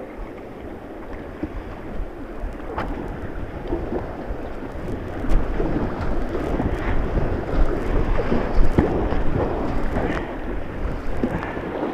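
White-water river rushing and splashing around a kayak, getting louder and choppier about five seconds in, with rumble from the water buffeting the microphone.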